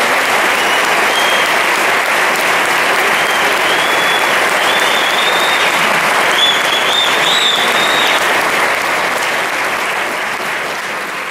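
Audience applauding a live song, steady through most of it, with thin high tones over the clapping in the middle, then fading away near the end.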